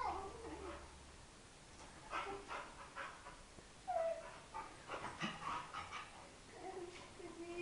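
A dog whimpering and yipping in short, scattered calls, with a longer low whine starting near the end.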